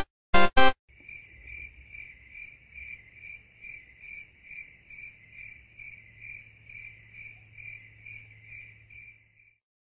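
Two short loud musical hits end the theme music, then a cricket-chirping sound effect runs steadily for about eight seconds: short high chirps, a little over two a second, over a faint low hum. It stops just before the end. It is the stock cartoon cue for an awkward silence.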